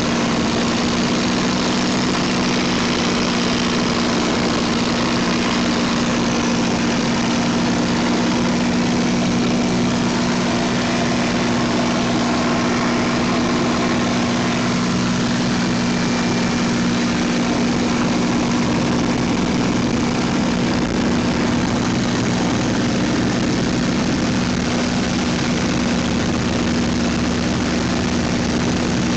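P-51 Mustang's Packard Merlin V-12 engine and propeller running at a steady cruise drone, heard from inside the cockpit.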